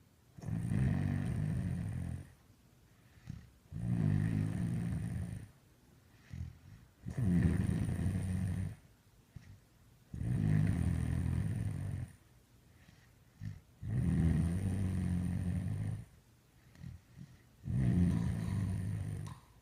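Steady, rhythmic snoring: six long, low snores, each about one and a half to two seconds, coming every three to four seconds with quiet pauses between.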